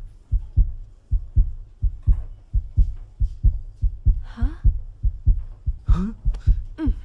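Heartbeat sound effect: a steady run of low thumps, about two a second, with brief voice sounds over it near the middle and near the end.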